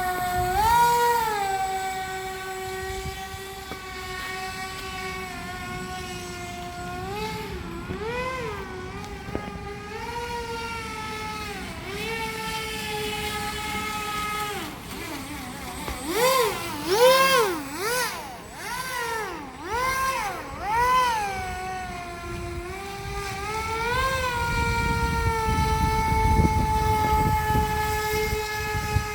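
Aquacraft Cajun Commander RC airboat's motor and air propeller whining, the pitch rising and falling as the throttle is worked. There is a run of quick surges in the middle, then a steadier whine near the end over a low rumble.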